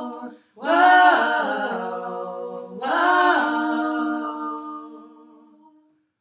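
Female a cappella quartet singing two long 'whoa' phrases in succession, with no instruments; the second phrase slowly dies away.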